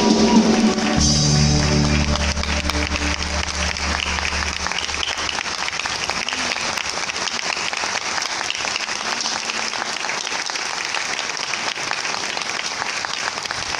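The last chord of the orchestra and amplified band holds and dies away over the first few seconds, under the audience's applause. The steady applause then carries on alone.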